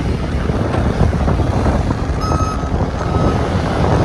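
Steady low rumble of a moving vehicle and wind, with a vehicle reversing alarm beeping on and off from about two seconds in.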